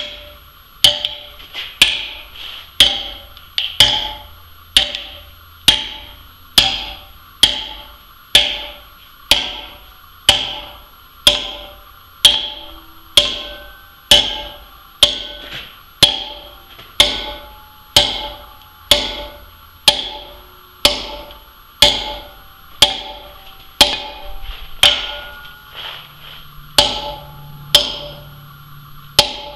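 Steel wedges driven with a heavy hammer into feathers set in drilled holes in a marble block, a steady blow about once a second. Each strike is a sharp metallic clink with a brief ring. The wedges are building pressure to split the stone along the drilled line.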